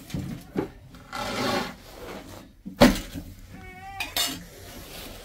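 Metal pots and utensils being handled: scattered clinks and knocks, a short scrape, and one sharp knock a little before halfway. A brief high wavering tone sounds just before the last knock.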